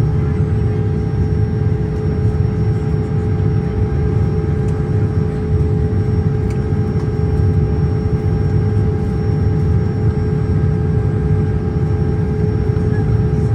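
Steady in-flight cabin noise of a Boeing 787: a constant low rumble of airflow and engines with a steady hum tone over it.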